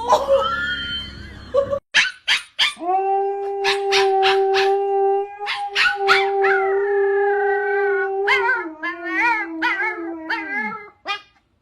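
A dog howling: a long held note that steps down slightly and then slides away at the end, with wavering higher yips and a few sharp clicks over the last few seconds.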